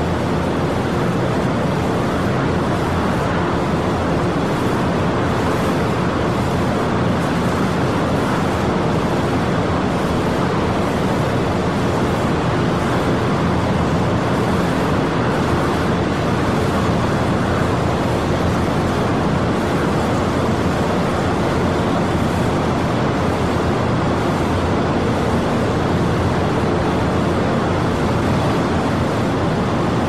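Industrial mining-site ambience: heavy machinery running in a steady, unbroken wash of noise with a low hum underneath and no distinct impacts.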